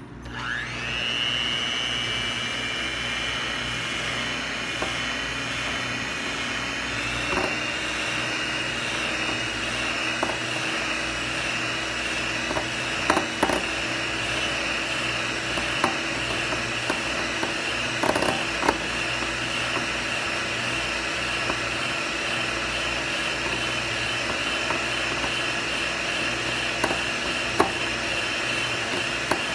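Electric hand mixer switched on, its motor spinning up with a quick rising whine and then running steadily, its twin beaters whipping instant coffee, sugar and hot water into dalgona foam. A few light clicks come as the beaters touch the glass bowl.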